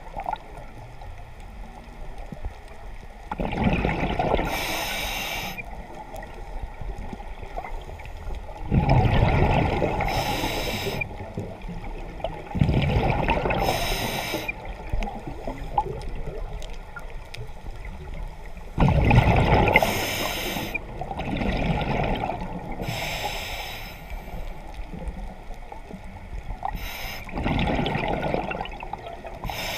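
Scuba diver breathing through a regulator underwater: bubbles burbling on each exhale and a hiss on each inhale, about six breaths, with a quieter water hush between them.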